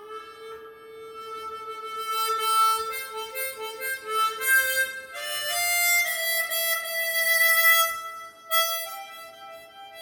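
Seydel Symphony chromatic harmonica with its stock covers, played as a slow melody of held notes and amplified through a studio sound system. The playing dips briefly about eight and a half seconds in.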